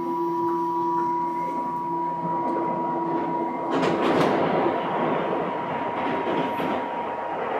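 Tobu 9000-series electric train running, with a steady whine of two tones. The lower tone cuts out about three and a half seconds in, and louder rolling noise with a rail clack takes over.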